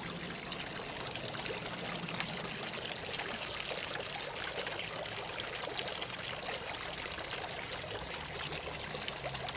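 Water pouring and trickling steadily, a small waterfall running. A faint low hum sits under it at the start and again near the end.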